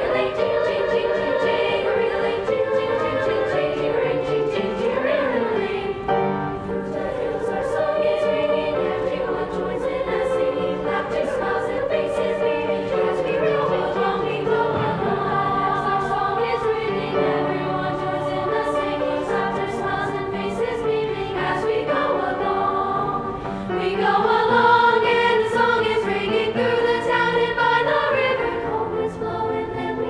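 Eighth-grade girls' choir singing a Christmas song with piano accompaniment. The singing swells louder about three-quarters of the way through.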